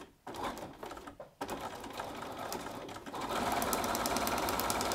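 Bernina sewing machine stitching a seam: a few handling knocks, then the machine starts about a second and a half in with a fast even rhythm. It runs faster and louder from about three seconds in.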